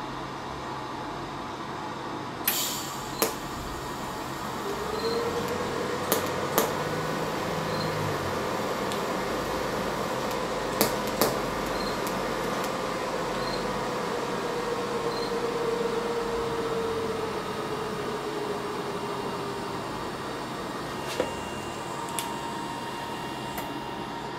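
TIG welding arc on a hydraulic line from an HTP Invertig 221 inverter welder. A few sharp clicks come first, then a steady hiss with a faint hum. The hum sags in pitch near the end, and the arc stops about twenty seconds in.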